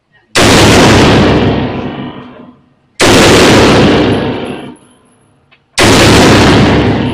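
Three gunshots at a shooting range, fired about two and a half to three seconds apart. Each one overloads the recording and trails off in a long echo.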